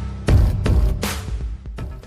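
Electronic background music with heavy bass and sharp percussive hits, fading out near the end.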